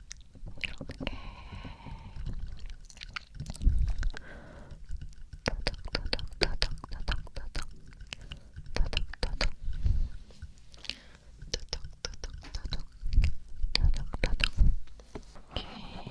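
ASMR mouth sounds close to the microphone: many quick wet clicks and smacks, with a few heavier low hits and a brief whisper near the start and the end.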